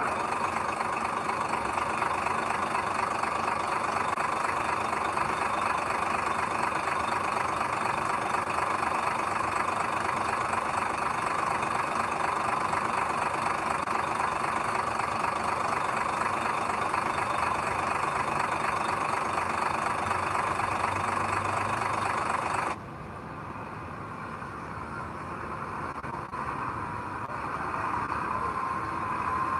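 Heavy diesel construction machinery running steadily. About three-quarters of the way through it drops suddenly to a quieter, duller engine sound that then builds again.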